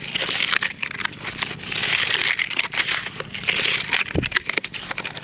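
A tool scraping and spreading wet sand-and-cement mortar over a concrete patch, making a gritty, crackling scrape with many small clicks.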